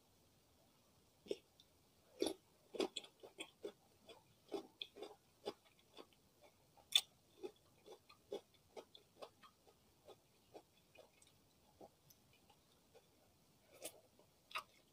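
Close-miked eating: short, uneven crunches and clicks of chewing pickled cucumber (acar timun) and pieces of martabak telor, a fried stuffed pancake, starting about a second in.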